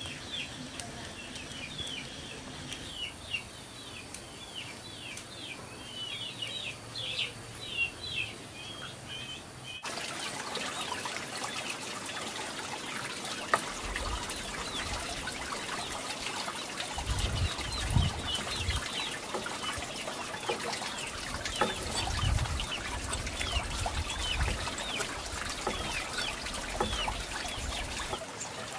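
Birds chirping in quick, short, falling chirps. About ten seconds in, a steady sound of running, trickling water joins them, with low thumps now and then.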